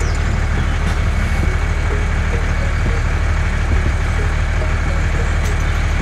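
Vehicle engine idling steadily, a low even drone with no change in speed.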